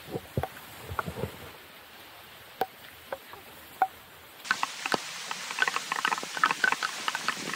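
Raindrops hitting the camera and its microphone: a few scattered sharp ticks and low knocks at first, then a dense crackling patter from a little past halfway.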